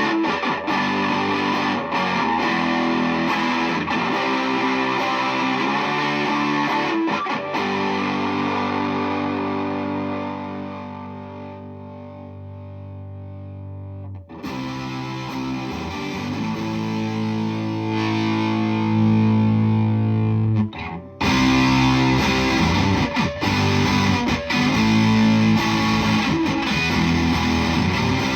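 Electric guitar played through a Flum Dilly distortion and boost pedal, giving a thick distorted tone. A chord is left to ring and fades down towards the middle before playing starts again, and after a brief break about two-thirds through the tone comes back brighter.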